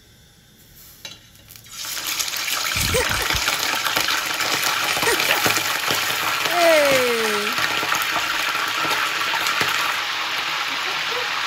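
Pieces of fish going into hot cooking oil, which breaks into a loud, steady sizzle about two seconds in and keeps frying. A short downward-sliding tone cuts through near the middle.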